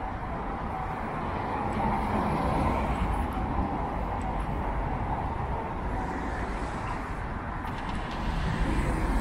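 City street traffic: cars driving along the road, a steady hum of engines and tyres that swells a little near the end.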